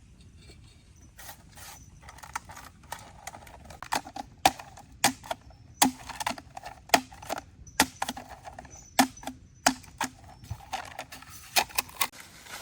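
An irregular series of sharp knocks, about one or two a second, starting faint and loudest through the middle.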